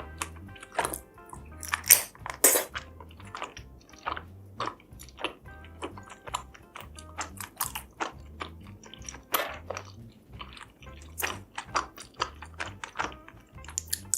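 Close-up eating sounds: chewing and biting with many sharp, wet mouth clicks at irregular intervals. Background music with a steady low beat runs underneath.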